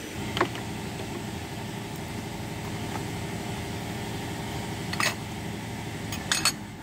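A steady engine hum, as of a motor vehicle idling, with a few light metal clinks from hand tools: once shortly after the start and a small cluster towards the end.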